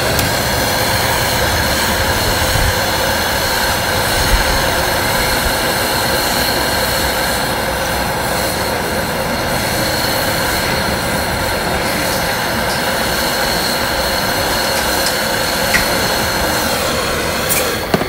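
Handheld gas brazing torch burning with a steady hiss and faint whistling tones as it brazes shut a copper refrigerant line where a piercing valve had tapped it. The flame cuts off near the end.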